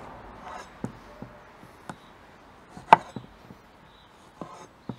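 Knife cutting a tomato on a cutting board: scattered light knocks of the blade meeting the board, with one sharper knock about three seconds in.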